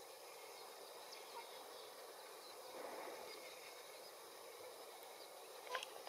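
Faint outdoor ambience: a low, even hiss with a few faint, scattered high chirps, and a short sharp click near the end.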